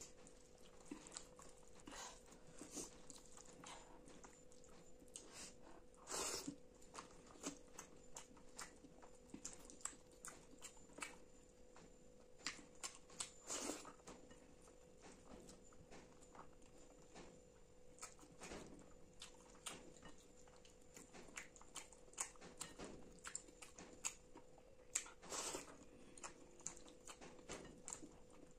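Faint close-miked eating sounds: wet squishing of rice and chana masala being mixed by hand on a steel plate, with chewing and lip smacks, many short irregular clicks throughout. A faint steady hum runs underneath.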